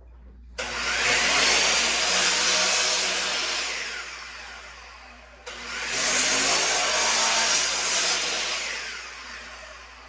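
Power miter saw run twice for two cuts: each time the motor starts abruptly with a loud high whine through the wood, then winds down and fades over a couple of seconds.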